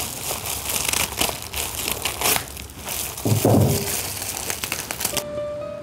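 Wet crackling and crinkling of seasoned kimchi cabbage, a dense run of small crackles and clicks. Near the end the crackle stops and music notes come in.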